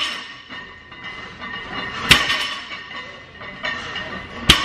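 Iron plates of a loaded barbell clanking down on a deadlift platform twice, each a sharp single knock, about two and a half seconds apart as deadlift reps touch down.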